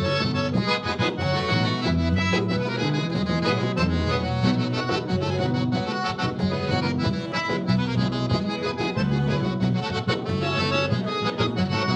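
Instrumental break of a gaúcho vaneira: the accordion (gaita) plays the melody over a steady bass and rhythm accompaniment, with no singing.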